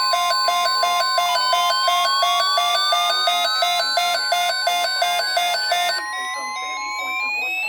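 Electronic alarm tones: a rapid repeating beep pattern of several tones, about four beeps a second, over a steady tone and a slowly rising sweep. The beeping stops about six seconds in while the sweep keeps climbing.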